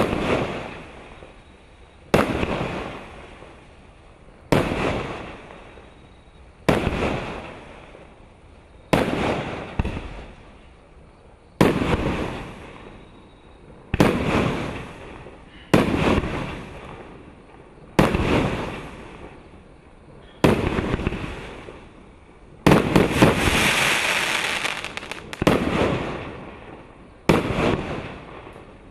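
A multi-shot consumer fireworks battery firing its shots one after another, about one every two seconds. Each shot is a sharp bang that trails off over a second or two. One longer, louder burst lasts about three seconds just past the middle.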